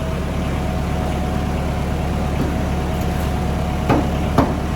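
Steady low engine-like hum, and near the end two sharp hammer blows on metal.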